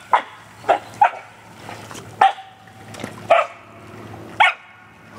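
A dog barking, about six short, sharp barks at irregular intervals.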